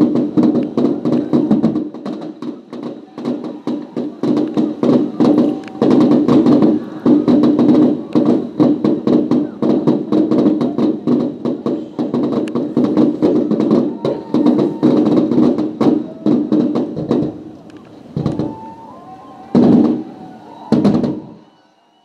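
Firework display in a rapid barrage of overlapping launches and bursts, a dense run of bangs and crackles. It thins out after about seventeen seconds, and two louder single bangs come near the end.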